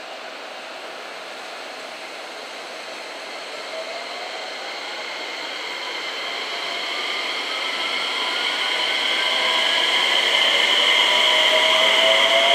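JR West 227 series electric multiple unit's VVVF inverter and traction motors pulling away from a stop: a steady hiss, then from about three seconds in a whine of several tones rising together in pitch and growing steadily louder as the train accelerates.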